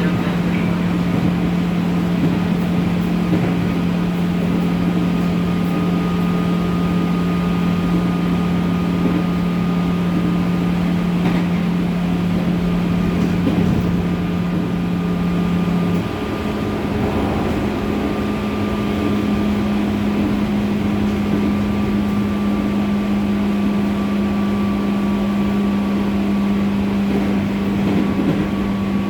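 Running sound inside the motor car of a JR 205 series electric train travelling at speed: steady wheel-and-rail rumble with a constant low hum that steps slightly higher about halfway through, and a faint steady high whine.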